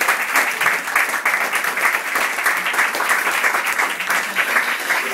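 Audience applauding, many hands clapping steadily in a dense patter.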